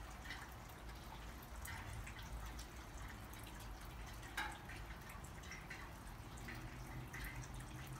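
Water dripping in irregular, scattered drops, over a steady low hum.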